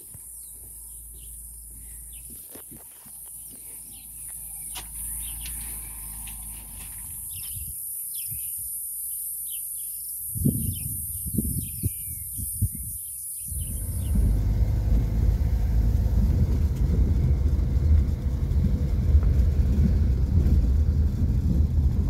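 A steady high insect drone with birds chirping over it, and a few low bumps among the chirps. About fourteen seconds in this gives way to the steady low rumble of a vehicle driving on a muddy dirt road, heard from inside the cabin.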